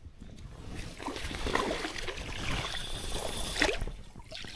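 Water sloshing and splashing in a shallow stream, swelling about a second in and dying away near the end.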